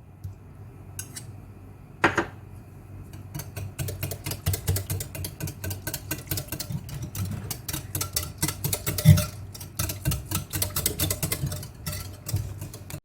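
A spoon stirring in a bowl, with fast clinking and scraping that starts about four seconds in and keeps going, after a single knock about two seconds in.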